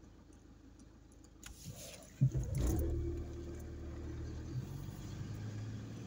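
A car engine, heard from inside the car, fires up suddenly about two seconds in and then runs steadily as the car pulls away.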